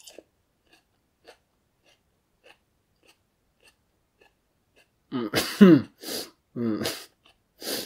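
Faint mouth clicks from a man chewing, then from about five seconds in four loud coughing, throat-clearing outbursts: his reaction to the heat of the super-hot chili pepper he is chewing.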